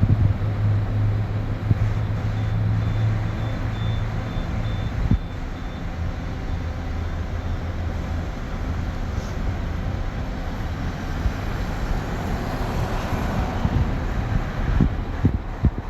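A steady, engine-like rumble with a low hum, and a faint run of high beeps a few seconds in.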